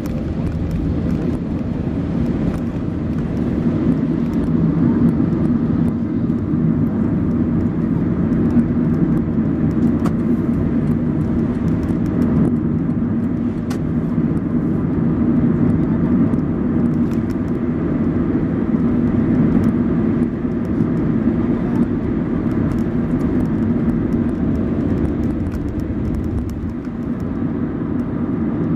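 Steady engine and road noise inside a moving car, a low hum with tyre noise from wet asphalt.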